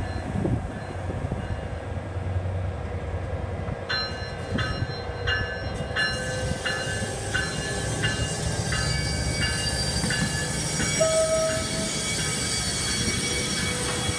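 NJ Transit ALP-45DP dual-mode locomotive running on its diesel engine as the train rolls by, a low steady rumble. From about four seconds in a bell rings at an even pace of roughly three strikes every two seconds. Toward the end, high wheel squeal rises as the cars take the curve.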